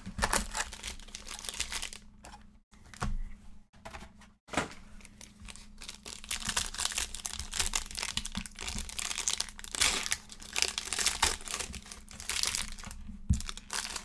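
Foil trading-card pack wrappers being torn open and crinkled by hand, a quick irregular crackle that comes in short bursts at first and runs almost without pause through the second half.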